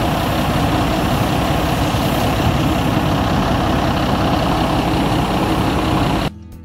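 Diesel engine of a Mercedes bus motorhome idling steadily, a dense low rumble that cuts off abruptly near the end.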